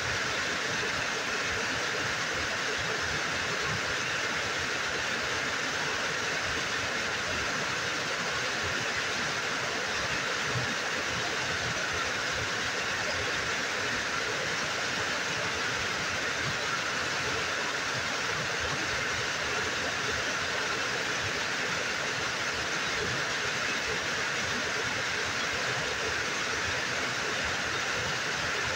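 Small waterfall pouring over a rock ledge into a pool: a steady, even rush of falling water.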